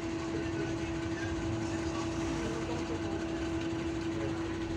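MAN Lion's Classic city bus idling at a standstill, heard from inside the passenger cabin: a low diesel rumble with a steady whine held on one note.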